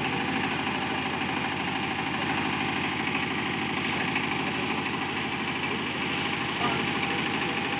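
Kubota diesel engine of a generator set running steadily at idle, a continuous even chugging.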